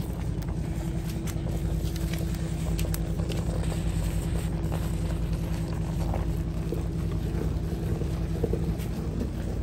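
Steady low rumble with a faint hum, and light knocks and scrapes from a wooden spoon stirring thick maize-flour porridge in an aluminium saucepan over a wood fire.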